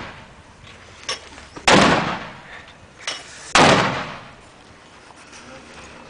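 81 mm mortar firing two rounds in quick succession, about two seconds in and again just under two seconds later. Each report is loud and dies away over about half a second, with a short knock just before it. The fading tail of a previous round is heard at the start.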